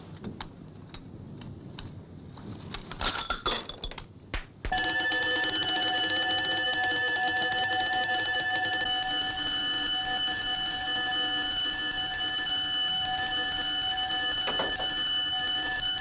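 A few light clicks and a brief metallic clatter, then, about five seconds in, an electric wall-mounted alarm bell starts ringing continuously. The bell is the alarm for a broken radioactive capsule in the hot cell.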